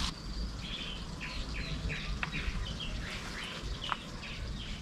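Small birds chirping: a run of short, falling chirps, about three a second.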